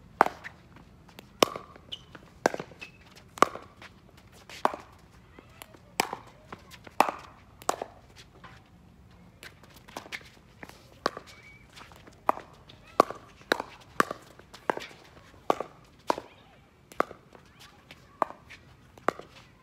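Pickleball paddles striking the plastic ball in a long rally: a string of sharp pops, mostly about a second apart, coming quicker in spells of fast exchanges.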